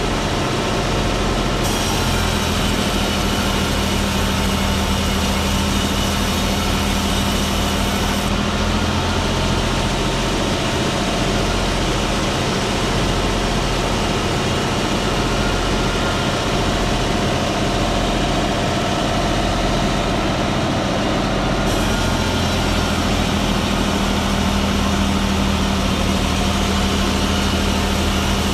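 Engine-driven wood-sawing machine running steadily. Its upper hiss rises and drops a few times.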